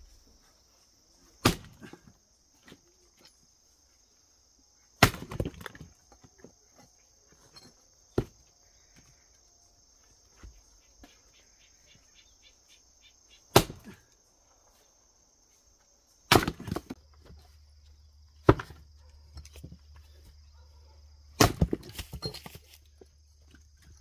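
Axe splitting firewood logs on a chopping block: about seven sharp blows a few seconds apart, some followed by the clatter and splintering of split pieces falling.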